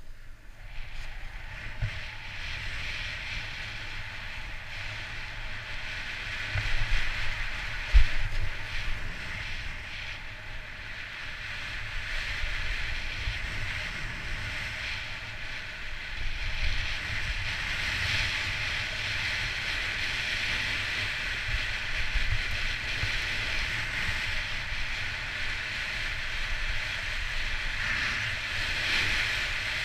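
Snowboard sliding and carving over packed snow, a steady scraping hiss, with wind buffeting the microphone. A sharp thump about eight seconds in is the loudest moment.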